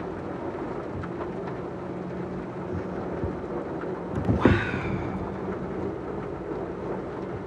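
Steady rain through a thunderstorm, with one sudden, loud crack of thunder about four and a half seconds in.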